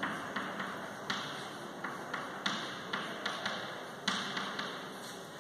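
Chalk writing on a blackboard: a string of short, irregular taps and scratchy strokes as letters and an arrow are drawn.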